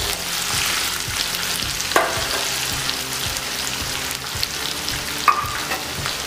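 Sliced onions and whole spices sizzling and crackling in hot oil in a kadai, stirred with a spatula at first. Two sharp knocks stand out, about two seconds in and just after five seconds.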